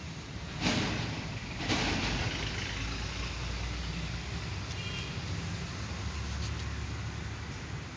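A steady low rumble, stronger in the second half, with two brief rushing noises about a second apart near the start.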